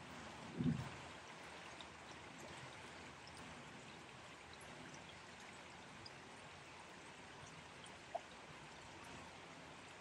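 Faint steady rush of flowing water, with a dull thump about a second in and a short click near the end.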